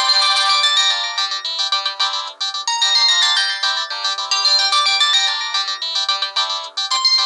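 Samsung GT-E1050 mobile phone playing one of its built-in polyphonic ringtones: a fast melody of many short notes, with no bass, dipping briefly twice.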